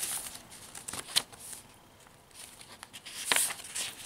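Paper pages of a handmade junk journal rustling as they are turned by hand. There is a crisp flick about a second in, then a louder run of rustles past the three-second mark.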